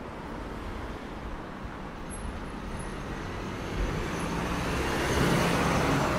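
Street traffic noise, with a motor vehicle passing close by: the sound grows louder from about four seconds in, peaks near the end, then begins to fade.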